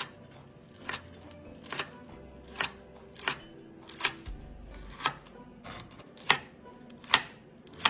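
Knife slicing through crisp deep-fried pork belly and hitting the cutting board, one sharp cut roughly every three-quarters of a second.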